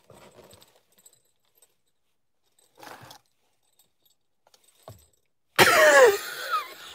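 Small jingle bells on a handheld Christmas sign jingling as it is shaken, starting about a second before the end, with a voice sliding down in pitch over them. Faint rustling of the sign being handled comes earlier.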